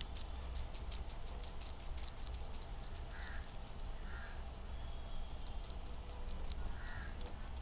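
Guinea pigs chewing leafy greens close to the microphone: a run of quick, crisp crunching clicks. From about three seconds in, four short harsh calls sound in the background.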